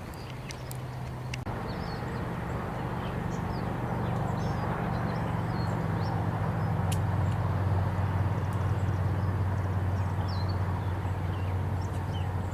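A motor running with a steady low hum that grows louder over the first several seconds and drops to a lower pitch about halfway through. Faint high chirps sound over it.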